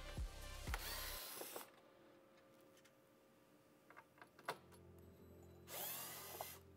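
Cordless electric screwdriver briefly whirring as it backs out Torx screws from a UTV door panel: one short run in the first two seconds and another near the end, with a couple of clicks between. Background music with a steady beat stops about a second in.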